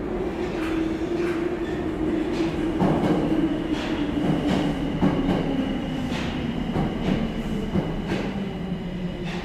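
Subway train pulling in and slowing: its motor whine falls steadily in pitch, with the wheels clicking over rail joints about once a second.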